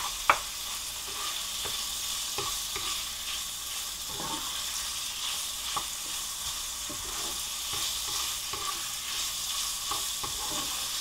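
Chopped chicken and garlic sizzling in oil in a hot frying pan, with a spatula scraping and tapping the pan as the pieces are stirred. A sharp knock just after the start is the loudest sound.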